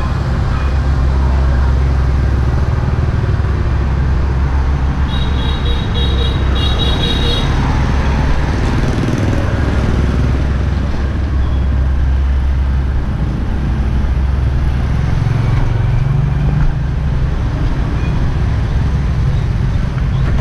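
Street traffic of motor scooters riding past close by, with a steady low rumble. A high horn beeps in two short bursts about five to seven seconds in.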